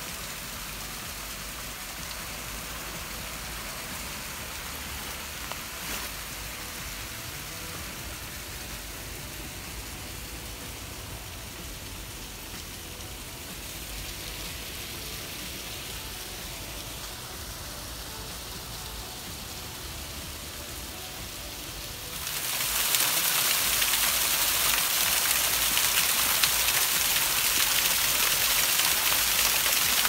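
Small forest waterfall splashing over mossy rock into a stream, a steady rushing hiss of falling water. About three-quarters of the way through it becomes much louder and brighter, heard right up close to the falling water.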